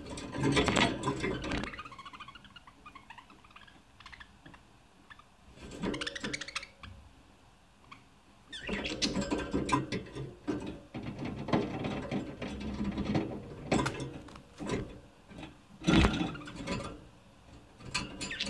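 Budgerigars chattering: fast clicks, squeaks and warbles in bursts. There is a lull around the middle, then steady chatter through the second half.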